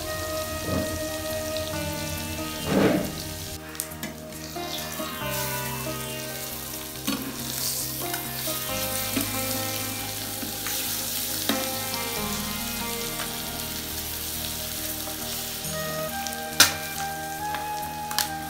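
Oil sizzling steadily around masala-coated boiled eggs frying in a pan, with the odd knock and scrape of a steel spatula turning them; one sharp knock near the end.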